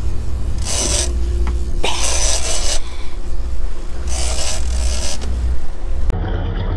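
A big-game fishing reel cranked in short rasping strokes every second or two as the angler pumps a large kingfish up against the drag, over the low steady drone of the boat's engine. The sound changes abruptly about six seconds in.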